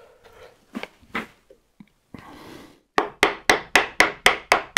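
Mallet blows on a wood chisel chopping waste from a joint. Two lighter strikes about a second in, then a quick even run of eight sharp blows, about four a second, near the end.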